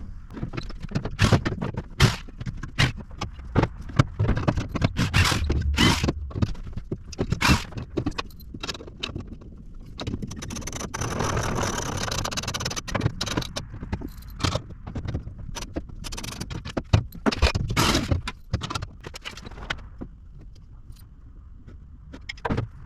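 Metal storage-rack parts rattling, scraping and knocking as the rack is lifted and handled for its last mounting screw, with a power drill running for a few seconds near the middle as the screw is driven.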